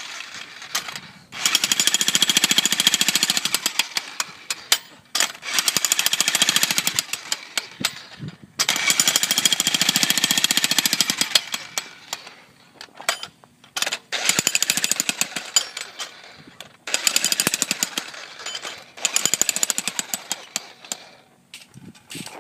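Corded electric jackhammer hammering into concrete with rapid blows, in runs of a few seconds broken by short pauses.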